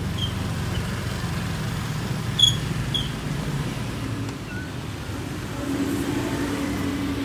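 Car driving slowly through heavy city traffic, heard from inside: a steady low engine and road rumble, with a few short high beeps, the loudest about two and a half seconds in. A steadier low hum joins about five and a half seconds in.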